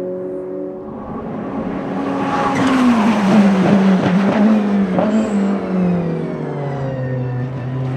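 Ferrari 488 GT3's twin-turbo V8 going past on track, growing louder toward the middle and then fading, its pitch falling in steps as it slows and shifts down. A few sharp cracks come at the loudest point, and a faint high whistle falls away after it.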